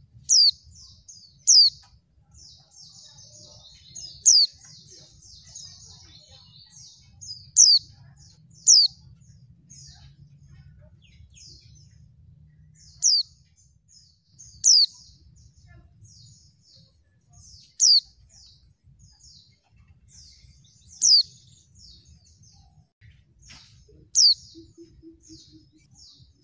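Female white-eye (pleci) calling: about ten sharp, high, downward-sliding single notes a few seconds apart, with fainter quick twittering between them. It is a call used to draw male white-eyes into singing.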